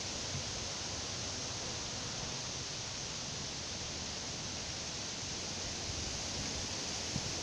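Steady outdoor nature ambience: an even hiss with no distinct events.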